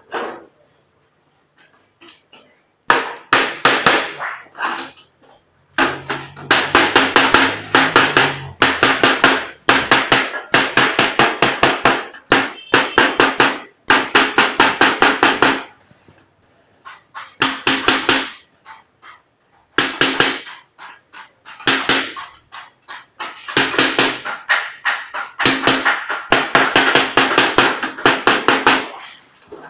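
Rapid hammering on a sheet-metal cone being formed over a steel edge: quick runs of sharp metallic blows, several a second, in bursts of a second or more with short pauses between.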